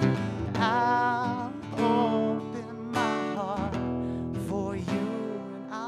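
Acoustic guitar strummed through a song, with a man singing held, wordless notes with vibrato over it.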